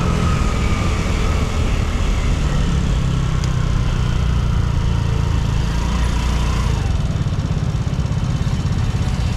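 Yamaha Cygnus X scooter engine running on the move, with heavy wind rumble on the helmet-camera microphone. A faint whine near the middle of the range drifts in pitch as the speed changes.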